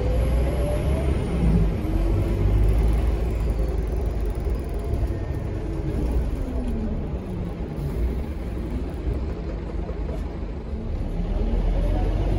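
Scania K230UB bus's five-cylinder diesel and ZF Ecomat automatic gearbox, heard from inside the saloon as a steady low rumble. The engine note rises in the first couple of seconds, falls and quietens as the bus slows around the middle, and climbs again near the end as it pulls away.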